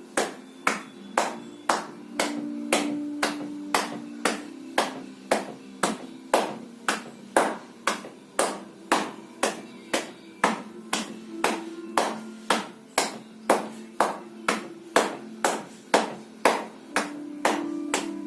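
Sharp taps in a steady rhythm, about two and a half a second, over sustained low musical tones.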